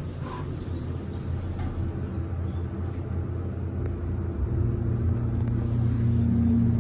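Westinghouse hydraulic elevator, modernised by Otis, as its doors finish closing and the car begins to rise: the hydraulic pump unit hums steadily. The hum grows louder about four seconds in as the car gets under way, with a steadier, higher hum near the end.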